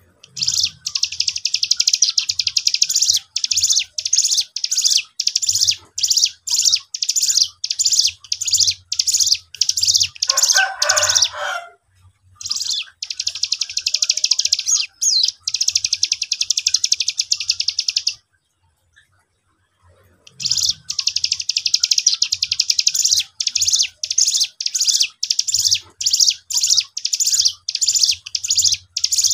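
Caged cigun songbird singing fast, high, trilled song in long bouts of rapidly repeated notes, with a short break near the middle and a two-second pause about two-thirds of the way in. The song is the energetic singing of a young bird, used as a lure to get other cigun to answer.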